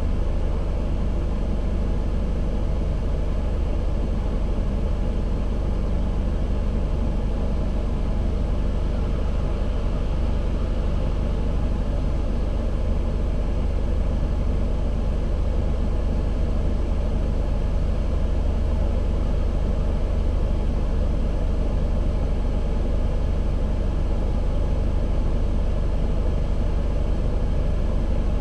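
Car engine running steadily, with a deep, even rumble and no change in speed.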